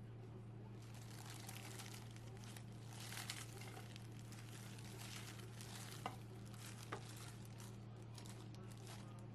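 Light dry rustling and crinkling, with two small sharp clicks about six and seven seconds in, over a steady low hum.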